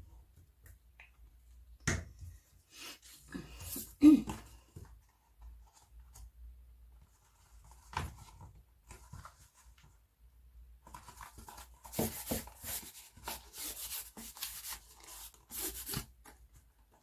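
Sheets of paper and card being handled on a wooden table: a glue stick set down and a few knocks and short rustles, the loudest about four seconds in, then a long stretch of dense, crisp paper rustling and crinkling in the last third.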